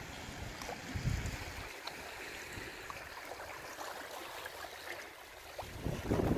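Seawater lapping and trickling among shoreline rocks and tide pools: a steady, quiet wash with a few faint ticks. There is a brief low rumble about a second in.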